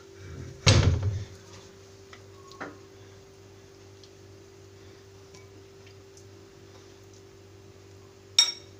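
A metal spoon knocks against ceramic dishes as baked potato flesh is scooped out and dropped onto a plate. There is a loud knock and clatter about a second in, a light tap later, and a sharp ringing clink near the end, over a steady low hum.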